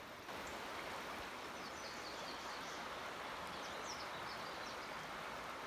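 Steady rush of flowing river water, with faint, short, high bird chirps scattered over it.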